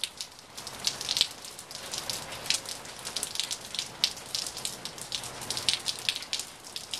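Rain falling on a swimming pool and patio: a steady hiss with many sharp, irregular drop taps close by.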